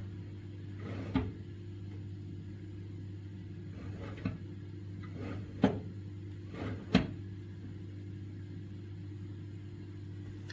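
Four sharp knocks or clunks over a steady low hum, the loudest two close together in the middle.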